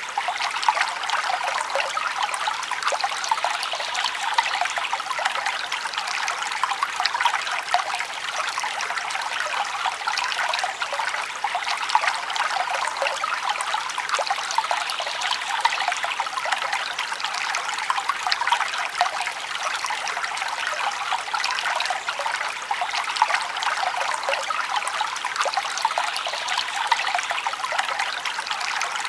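Forest stream flowing steadily, a continuous light rush of water with many small splashes and gurgles, and little deep rumble.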